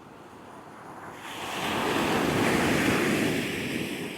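Caribbean surf in high wind: a rush of breaking waves that swells about a second in and eases near the end, with wind over it.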